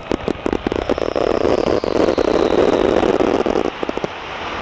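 Dense fireworks crackling with many sharp pops, over the running engine of a light aerobatic aircraft flying past; the crackle drops away about three and a half seconds in.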